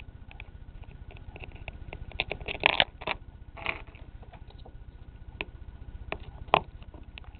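Plastic Lego minifigures being handled and set down on a Lego baseplate: scattered small clicks and taps, a quick run of them about two to three seconds in and a sharper single click near the end, over a steady low hum.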